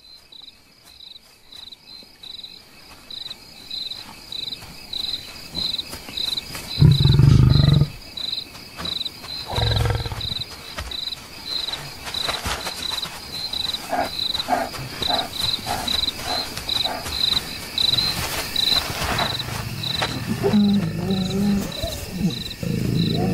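Crickets chirping steadily, about twice a second, under low growls of African lions. The loudest growl comes about seven seconds in, another near ten seconds, and a run of short growls near the end from a mating pair.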